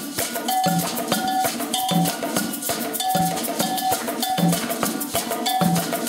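Group percussion playing the Afro-Cuban iyesá rhythm: a cowbell struck in a steady, repeating pattern over congas and other hand drums, the drum tones recurring about every half second.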